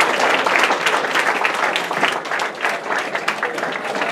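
An audience clapping, the applause slowly thinning out as fewer hands keep going.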